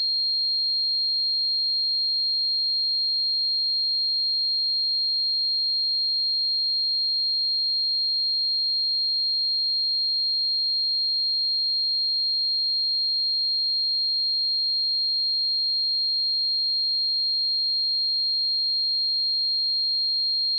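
A pure 4224 Hz sine-wave test tone, a single high-pitched whistle-like note held perfectly steady at constant loudness.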